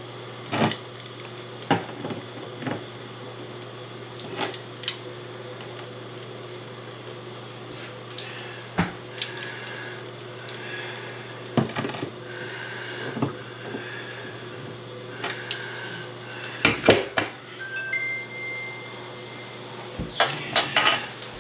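Intermittent clinks and knocks of metal faucet parts and tools being handled at a bathroom sink during reassembly of a dripping faucet, with a cluster of quick knocks a few seconds before the end.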